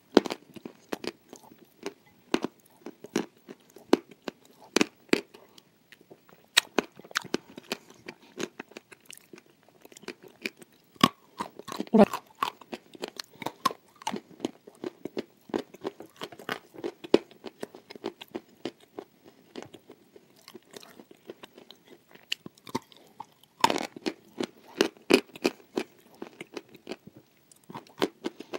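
A person chewing hard, crunchy pieces close to a clip-on microphone: a run of sharp crunches that thins out in the middle and comes thick again near the end.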